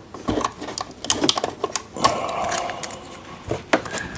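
Clicks and rattles of plastic parts and packing pieces being handled on a new Epson P900 printer, with a stretch of scraping about halfway through.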